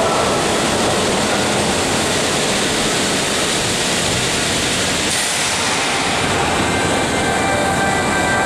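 Subway train pulling into the station and slowing alongside the platform: a steady, loud rush of wheel and running noise. Thin high whines come in over the last couple of seconds as it brakes.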